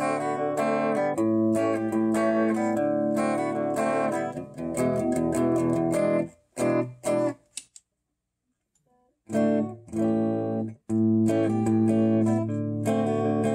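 Electric guitar (a Fender Mustang with two P90 pickups) played clean through a Peavey XR 680C PA/mixer amp and a speaker: picked notes and chords that ring on. The playing stops briefly a little past halfway, then carries on.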